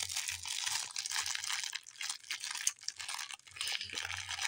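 Clear plastic packaging crinkling and crackling as hands work at opening a bagged figure, a continuous run of fine crackles.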